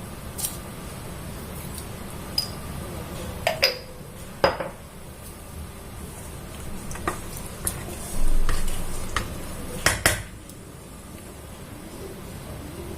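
Metal spoon clinking and knocking against a pressure cooker pot while salt and ghee go into the rice: a scattering of sharp clinks, the loudest about ten seconds in, over a steady low rumble.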